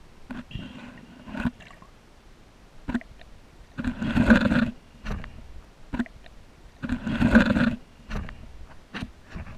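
Underwater sound picked up by a camera in its housing: two rushing, watery surges about a second long and three seconds apart, with scattered short clicks and knocks in between.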